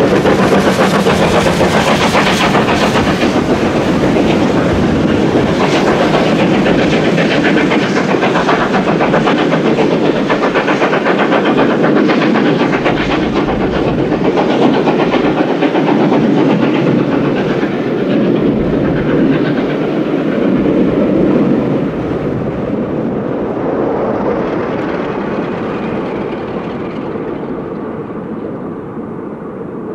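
LMS Jubilee class steam locomotive working hard with a rapid, loud exhaust beat, its carriages' wheels clattering over the rails. From about two-thirds of the way through, the sound gradually fades as the train draws away into the tunnel.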